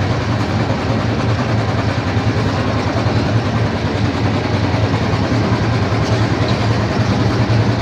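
Motorboat engine running steadily, a loud low hum that stays even throughout.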